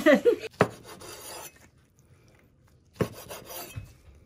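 Bamboo gimbap rolling mat rasping and rubbing as a roll is rolled and pressed, in two short spells about two seconds apart, each starting with a click.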